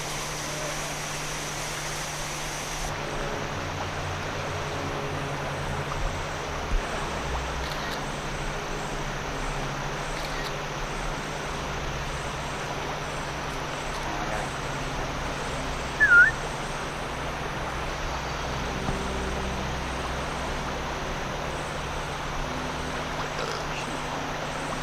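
Steady rushing noise of a swollen, flooding river current, with a faint low hum underneath. About two-thirds of the way through comes one short, sharp chirp that dips and rises in pitch.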